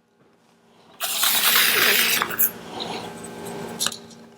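Screwdriver taking the brush screws out of a Model T generator: after about a second of near silence, a loud metallic scraping rasp, then small metal clicks and clinks of the screws and parts.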